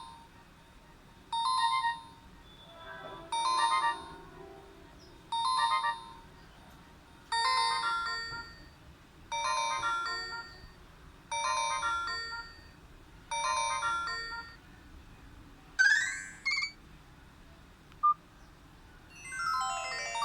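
Nokia 5310 ringtone: a short electronic phrase of a few notes repeating about every two seconds. Near the end a brief rising sweep sounds twice, then a new, faster run of notes starts.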